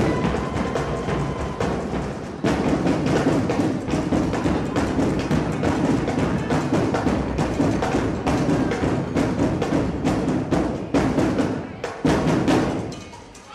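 Loud, percussion-heavy drum music with dense, rapid drum strikes, dropping away near the end.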